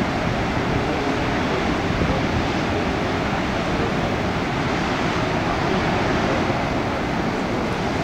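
Steady rush of wind and ocean surf, an even noise without breaks.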